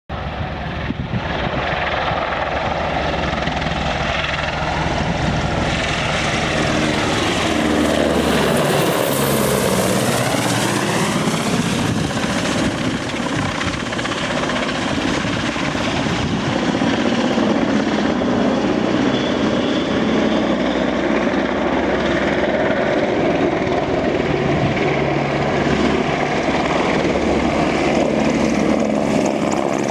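Royal Navy Merlin (AgustaWestland AW101) helicopter flying low and close, its three turbine engines and rotors making a loud, continuous noise. About ten seconds in, as it passes overhead, the sound sweeps down in pitch and back up with a rush of hiss.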